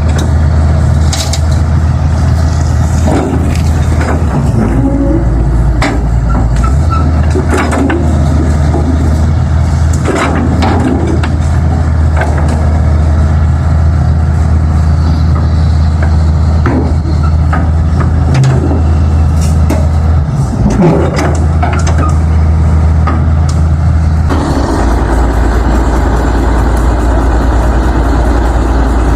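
A heavy vehicle engine runs steadily with a deep hum, with scattered sharp knocks and clanks over it. About 25 seconds in, the engine note drops lower.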